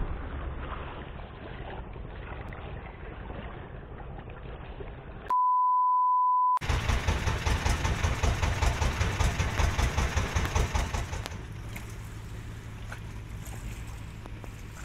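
Low background rumble, then a steady beep tone lasting about a second, starting about five seconds in. After the beep, a small wooden fishing boat's engine runs with a fast, even pulsing, and near the end it settles to a quieter, steadier run.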